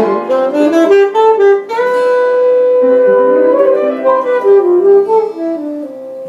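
Jazz band playing an instrumental passage, a melodic lead line moving note to note with one long held note about two seconds in.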